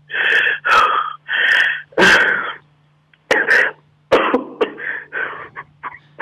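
A distressed man breathing harshly over a telephone line: four long, rasping gasps, then a run of quicker, shorter ones. A steady low hum runs underneath.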